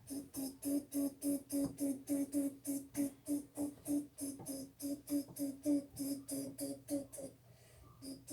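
Railroad-crossing bell sound: a fast, even ding on one steady pitch, about three or four strikes a second. It stops briefly about seven seconds in, then starts again.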